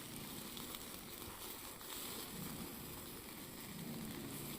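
Faint, steady sizzle and crackle of meat grilling.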